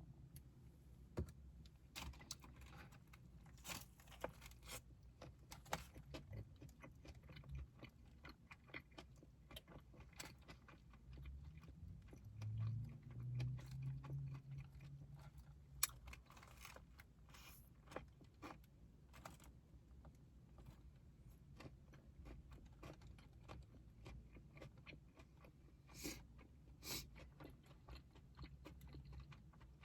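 Quiet chewing and crunching while eating a crispy fried chicken sandwich, with scattered small crunches and clicks throughout. A short low hum comes near the middle.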